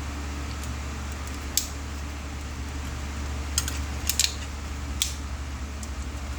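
Small, sharp clicks and taps of hand tools on small parts during a repair, a few single ones and a quick cluster of three near the middle, over a steady low hum.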